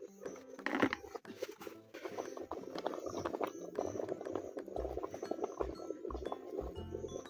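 Aluminium pot of leafy greens boiling hard over a charcoal stove: a dense, steady bubbling with many small pops.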